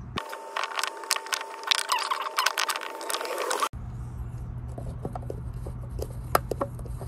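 Clicks and scrapes of hard plastic being worked: a PVC fitting is turned in the filter's drain port with groove-joint pliers, then, after a sudden change about halfway through, a PVC adapter is handled against a threaded PVC elbow.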